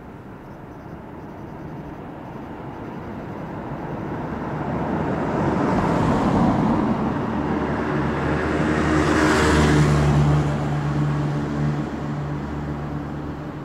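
A car passing across in front, its tyre and engine noise swelling to a peak about six seconds in, then a second, louder swell of traffic a few seconds later. From about halfway through a steady low engine hum sets in and carries on.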